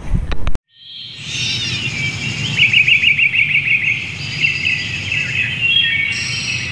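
Many small birds chirping and trilling at once, their calls overlapping, fading in after a brief burst of knocks that cuts off sharply about half a second in.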